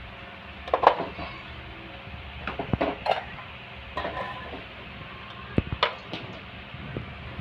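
A metal ladle clanking and scraping in an aluminium pot as raw pork pieces are tipped in from a plastic basket. The knocks come in scattered clusters, the loudest about a second in.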